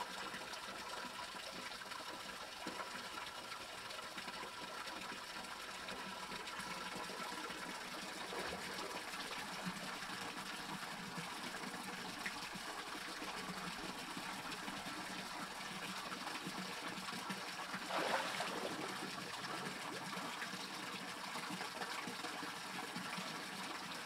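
Mountain stream water trickling over rocks, a steady gentle wash of water noise that swells briefly once, about three quarters of the way through.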